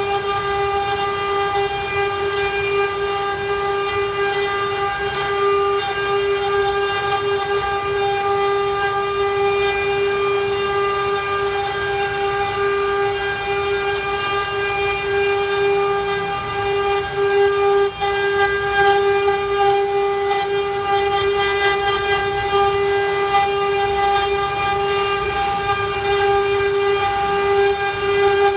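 CNC router spindle running at a constant speed, a steady high whine, with rougher cutting noise beneath it as the bit carves a wooden panel.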